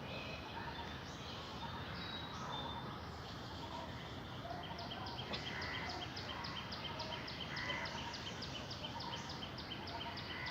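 Birds calling over steady outdoor background noise, with scattered short chirps and whistles; about halfway in, a rapid, even series of high notes starts, about four or five a second.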